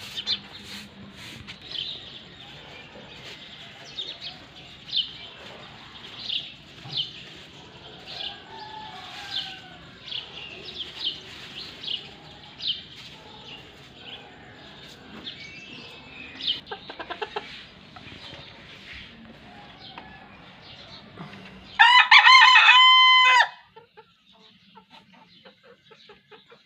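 Short high bird chirps repeat through most of the stretch, roughly one or two a second. Near the end a rooster crows once, loudly, in several quick notes with the last one held.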